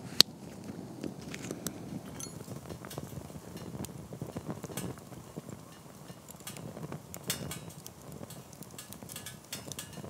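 Wood fire crackling and popping in a small stainless-steel Firebox stove, with irregular snaps over a low, even rush of flame. A single sharp click stands out just after the start.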